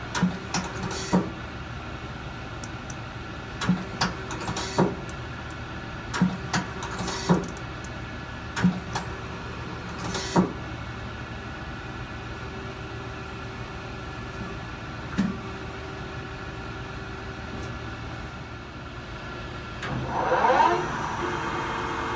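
Mighty Viper VT-27GL CNC turning centre lathe running with a steady hum. About a dozen sharp mechanical clunks come in the first half and one more later on. Near the end a whine rises in pitch and settles into a steady tone.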